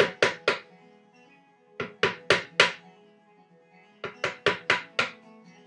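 Wooden mallet tapping a small carving chisel to chop out a handle recess in a wooden tray: sharp taps about four a second, in three short runs with brief pauses between. Faint music plays underneath.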